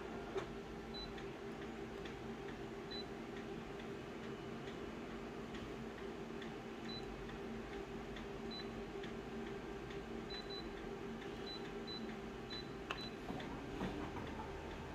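Multifunction copier humming steadily while its touch panel gives about ten short high beeps as keys are pressed. Near the end come a few clicks and knocks as a scan starts.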